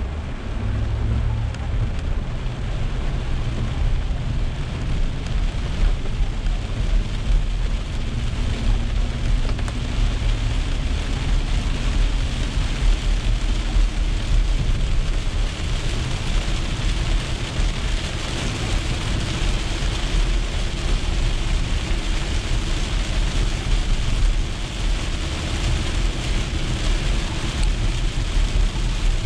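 Heavy rain on a car's roof and windshield, heard from inside the cabin, over a steady low rumble of tyres on a wet road. The hiss of rain and spray grows louder about halfway through.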